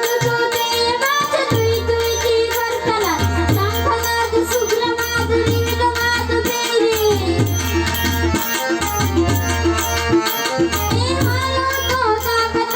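Indian traditional music: a gliding melody over a sustained drone, with low drum strokes and an even rhythm of high ticks.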